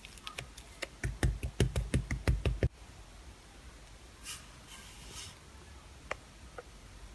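Slime being pressed and worked with a metal spoon in a plastic cup. A quick run of sharp pops and clicks about a second in, then a brief soft squish and a few scattered clicks.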